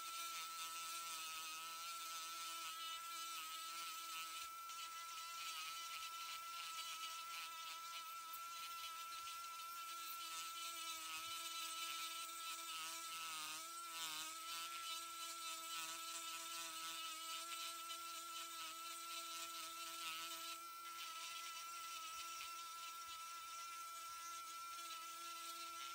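Old Dremel 370 rotary tool running at a steady high whine while its ball-shaped burr grinds into a pine knot; the pitch sags and wavers briefly about halfway through as the bit bites in. The owner thinks a bearing in the tool is going out.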